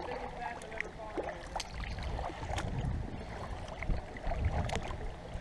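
Kayak paddle strokes: the blade dipping and dripping in the water, with scattered small clicks and splashes over a low rumble.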